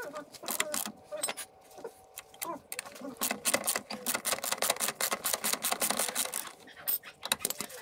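Metal hand tools and parts clicking and rattling during work on a scooter, with a thick run of quick clicks in the second half.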